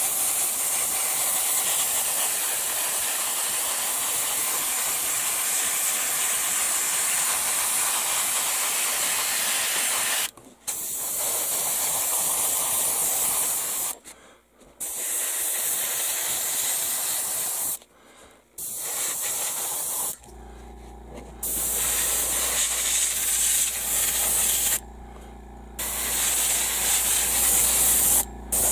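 Gravity-feed airbrush spraying primer onto plastic model parts: a steady air-and-paint hiss, cut off briefly about five times as the trigger is released and the sprue is turned. A low steady hum comes in about two-thirds of the way through, heard in the pauses.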